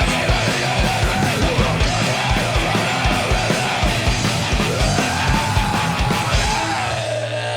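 Live loud punk/metal band playing, with fast, steady kick drum strokes under sustained guitar tones and yelled vocals. Near the end the drumming stops and the band holds a final low note.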